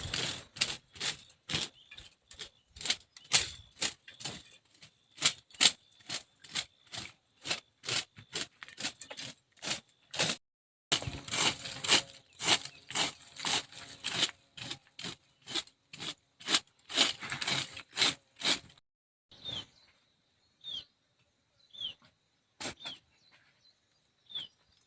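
Brisk broom-sweeping strokes, about two to three a second, coming thicker for a stretch in the middle and then thinning out. Near the end a bird chirps repeatedly, short falling chirps about once a second.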